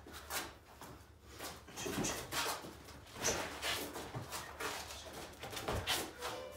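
Boxing sparring: gloved punches and quick footwork scuffing on a concrete floor, heard as an uneven run of short knocks and scuffs, about a dozen in all.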